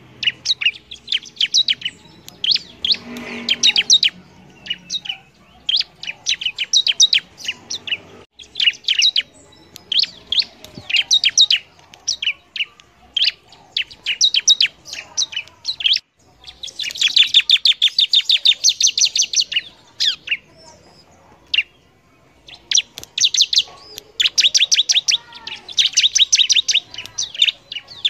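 Ciblek, the bar-winged prinia, singing in full voice: rapid runs of sharp, high chirps in bursts of one to two seconds with short pauses between, and one longer, denser run about two-thirds of the way through.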